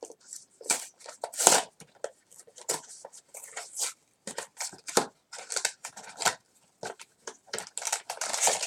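Toy packaging being handled: an irregular run of short rustles, crinkles and scrapes, a few a second.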